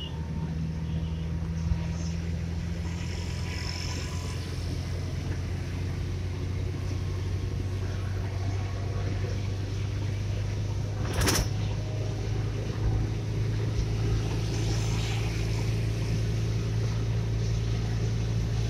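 A car's engine and road noise heard from inside the cabin while driving, a steady low hum. A single sharp click comes about eleven seconds in.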